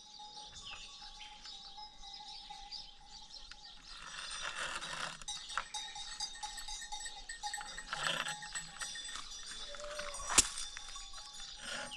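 Faint ringing of small bells over rustling handling noise, with one sharp click about ten seconds in.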